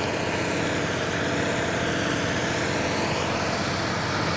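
Tractor diesel engine running at a steady speed, an even drone with no change in pitch.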